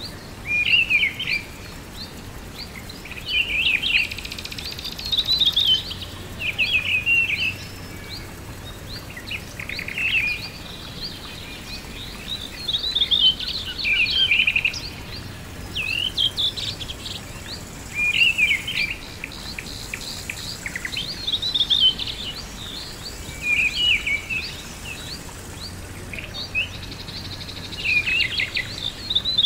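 Songbirds singing short, quick chirping phrases, one every second or two, over a steady background hiss.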